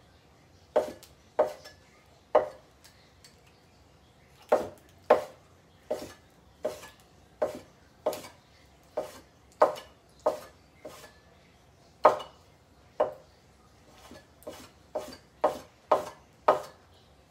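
Kitchen knife chopping sea cucumber into small pieces on a cutting board: about twenty separate, unhurried knife strokes hitting the board, roughly one every half second to a second, with short pauses between runs.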